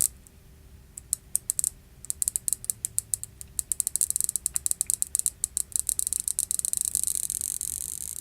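Stretch-release adhesive strip under an iPhone 6 Plus battery crackling as it is pulled slowly: a fast run of sharp, high clicks, broken by short pauses, that thickens into a dense crackle about four seconds in and fades near the end.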